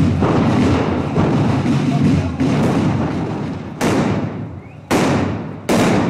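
Firecrackers going off: after a stretch of dense, continuous rattling noise, three loud separate bangs in the second half, each with an echoing tail.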